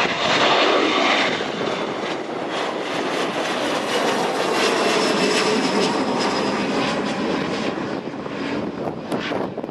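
Boeing 737's twin turbofan engines at takeoff thrust, a loud jet rumble with a faint high whine. It peaks about a second in, then holds steady and eases slightly as the airliner moves away.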